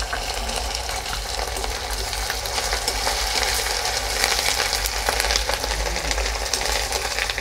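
Sliced onions and onion paste sizzling in hot mustard oil in a wok, with a metal spatula stirring and scraping against the pan in small clicks.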